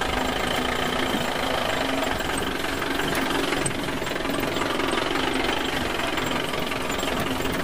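An engine running steadily with a knocking rattle, unbroken throughout.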